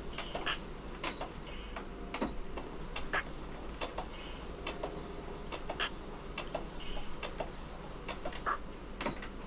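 Home electric sewing machine being worked slowly by hand at the presser foot: irregular sharp clicks and taps, about one or two a second, from the needle mechanism and fabric handling rather than a continuous stitching run.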